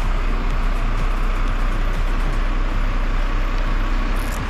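Crane truck's engine running steadily, a deep continuous rumble.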